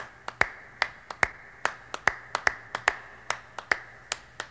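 Sharp finger snaps in a quick, uneven rhythm, about three a second, laying down the beat of a song's intro before the voices come in.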